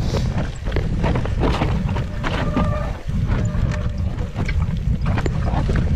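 Mountain bike descending a rough, rocky trail: heavy wind rumble on the microphone with a constant patter of sharp knocks and clicks from the bike jolting over the ground.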